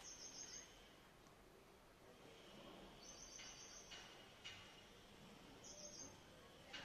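Quiet outdoor background with faint, short high-pitched chirps, each a quick run of notes, repeating every few seconds from a small animal.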